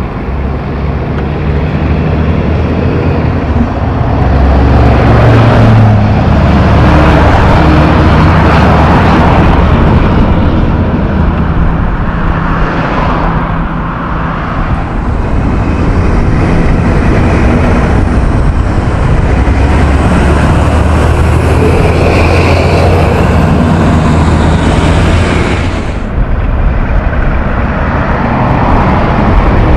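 Heavy diesel trucks and cars passing on a highway: a low engine drone and tyre noise that swell and ease as each vehicle goes by.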